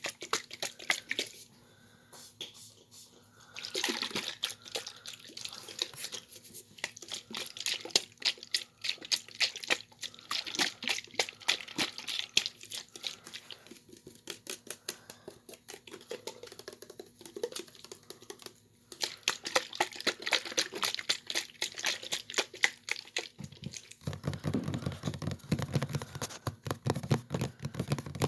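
Rapid close-up clicking and tapping, the taps coming in quick, irregular runs. They sound deeper and fuller from about 24 s on.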